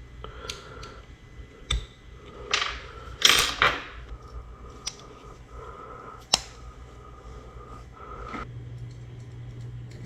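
Small metal parts and hand tools being handled during a brake lever swap: scattered light clicks and taps, a brief rattling rustle a few seconds in, and one sharp click past the middle.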